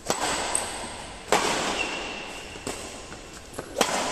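Badminton rackets striking a shuttlecock during a doubles rally: three sharp cracks about a second or more apart, each ringing on in the large hall's echo, with fainter knocks and a short high squeak in between.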